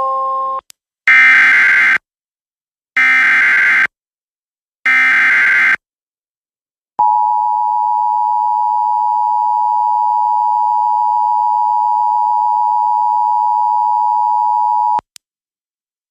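Emergency Alert System tones: the last note of a chime, then three short SAME digital header bursts about a second apart, then the steady two-tone EAS attention signal held for about eight seconds before cutting off sharply. This marks the start of a new alert.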